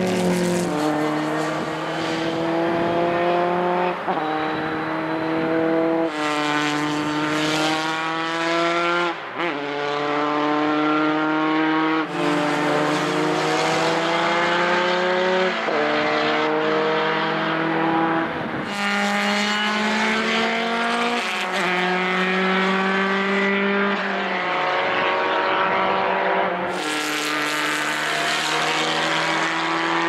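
Historic single-seater racing car engines at full throttle, the pitch climbing through each gear and dropping sharply at every upshift, about every two to three seconds.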